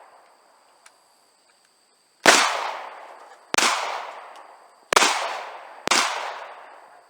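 Four single gunshots about a second apart, starting about two seconds in. Each crack is followed by an echo that dies away over about a second.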